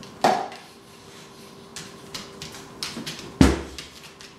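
A dish knocks down inside a wooden kitchen cabinet, then a few light clicks, and about three and a half seconds in the cabinet door bangs shut, the loudest sound, pushed closed by a dog.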